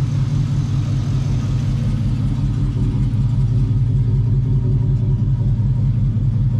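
Truck engine idling steadily with an even low rumble.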